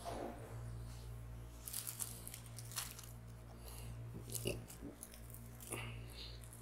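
Faint scattered clicks and crunchy rustles of dry fruits, raisins and sliced almonds, being picked up and sprinkled by hand, over a steady low hum.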